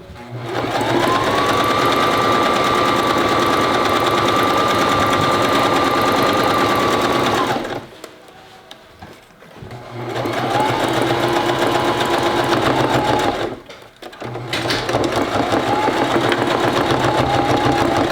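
Electric sewing machine stitching edging onto screen mesh in three runs: one of about seven seconds, then two shorter runs of about three to four seconds, with brief stops between. The motor's whine rises in pitch as it speeds up at the start of each run.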